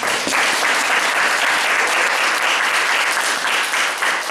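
Audience applauding: a steady patter of many hands clapping at once.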